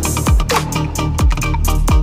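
Electronic dance music with a heavy beat: deep bass hits that drop in pitch, about one every three-quarters of a second, over busy hi-hats.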